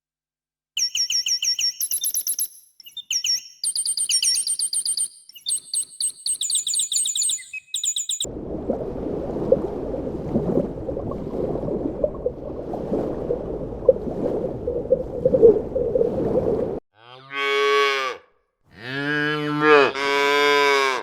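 High-pitched chirping calls in short bursts, then a dense, steady chatter of many animal voices. About four seconds from the end this cuts to a cow mooing twice in long, low calls.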